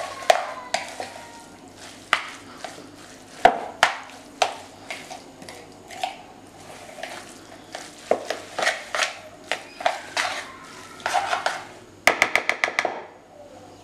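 A metal fork stirring and tossing soaked Chinese vermicelli in a plastic bowl, with irregular scrapes and clicks against the bowl. Near the end comes a quick run of about eight clicks.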